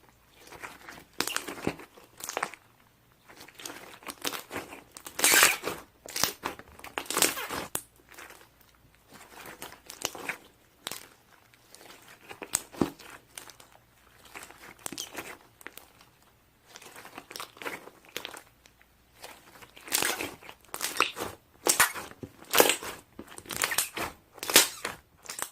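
Irregular crinkling and crackling handling noise in short bursts separated by quieter gaps.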